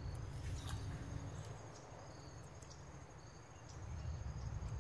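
Insects chirping outdoors: a faint, steady high trill with short chirps repeating above it, over a low rumble of handling noise on the microphone and a few faint clicks.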